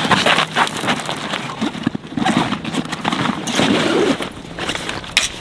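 A Vertex Gamut Checkpoint backpack being handled on gravel: it is set down and worked open, giving a quick run of clicks and knocks over rustling and crunching.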